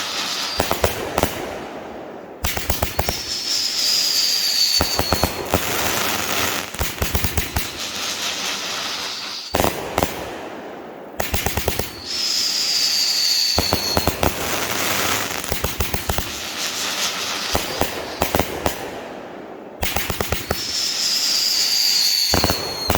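Brothers Pyrotechnics Shotgun Wedding 500g firework cake firing: quick volleys of launch shots, with long stretches of dense crackling between them. A whistle falling in pitch sounds three times, a few seconds into each volley.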